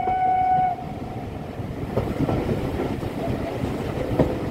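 LMS 4F steam locomotive's whistle holding one steady note that cuts off under a second in, then the train running on the rails with a steady rumble and two sharp wheel knocks, about two seconds in and near the end.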